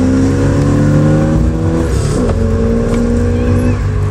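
Opel Manta engine revved while the car stands still, heard from inside the cabin: the revs climb slowly, drop suddenly about two seconds in, then are held steady.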